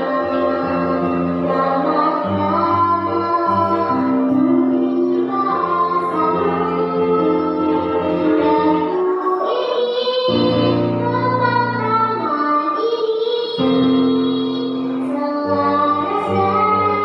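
A young girl singing solo into a handheld microphone over backing music with long held chords.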